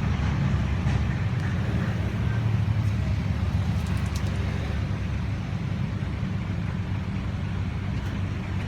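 Car engine idling steadily with a low rumble.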